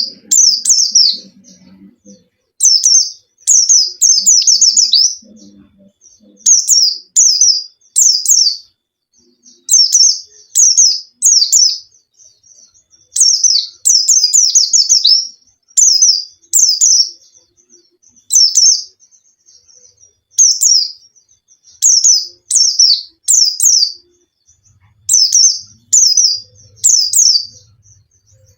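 White-eye (pleci, Zosterops) singing in full song: short bursts of high, quickly falling chirps, repeated every second or two.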